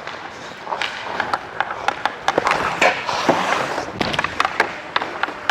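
Ice hockey skates scraping and carving on the ice, with many sharp clacks of sticks and puck, and a longer stretch of scraping between about two and four seconds in.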